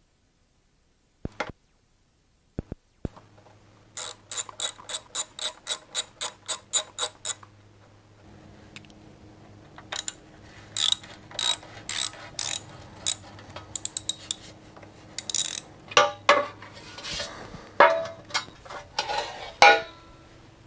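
Hand socket ratchet clicking in quick runs, about four clicks a second, as the skid plate bolts are backed out. Near the end, the skid plate clatters and scrapes as it is pulled free.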